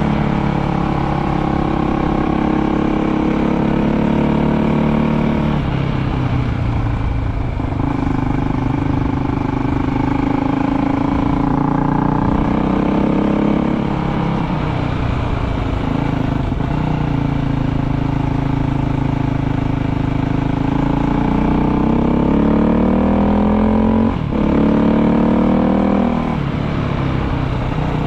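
Dual-sport motorcycle engine running under way, its pitch climbing under throttle and dropping back several times as the rider shifts or eases off, over a steady rush of riding noise.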